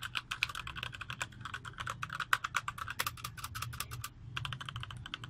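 Fast typing on a Rakk Kimat mechanical keyboard with Gateron switches: a dense run of sharp key clicks, with a brief pause about four seconds in. Really noisy, as mechanical keyboards are.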